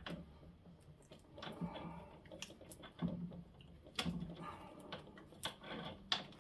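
Scattered small metallic clicks and knocks of hand work on a scooter's front fork leg, as the fork top cap is pushed down against the spring and threaded into the tube.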